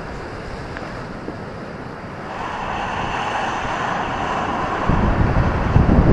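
Ocean surf on a beach: a wave breaks with a hiss that swells in about two seconds in, then a deep rumble builds toward the end, with wind on the microphone.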